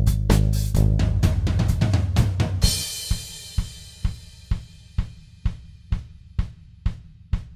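Background music with a drum kit. About three seconds in a cymbal crashes and the other instruments drop away, leaving a steady drum beat of about two hits a second.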